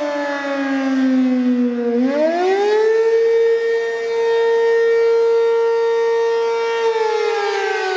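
ACA P15 electromechanical fire siren sounding a wail: its pitch falls, climbs back quickly about two seconds in, holds steady for about four seconds, then starts falling again near the end.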